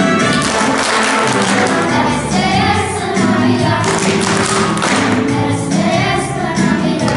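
Music: a group of voices singing over instrumental accompaniment, with light percussive taps.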